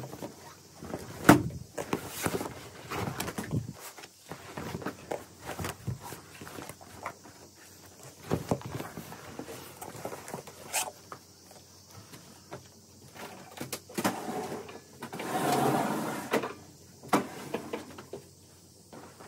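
An area rug being handled on a laminate floor: footsteps, rustling and the rug dragging and flapping as it is lifted and folded back, with scattered knocks. A sharp knock comes about a second in, and a longer rush of rubbing noise comes about fifteen seconds in.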